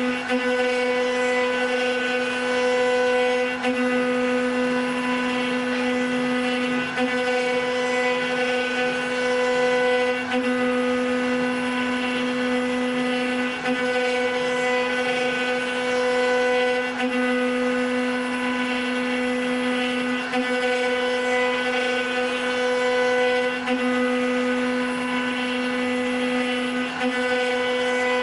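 Spindles of an 8-spindle 4-axis CNC wood router running, a steady loud whine with many overtones. The tone flutters briefly about every three and a half seconds.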